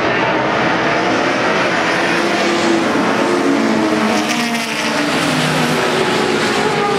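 Several sports saloon racing car engines running hard together, their pitches overlapping and rising and falling as the cars accelerate and change gear.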